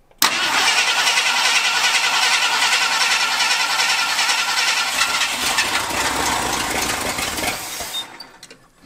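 1968 Ford F-250's engine cranking over on the starter for about seven and a half seconds, starting abruptly and stopping near the end without settling into a run. This is a first start after long storage, with fuel being fed by hand to prime the dry fuel system.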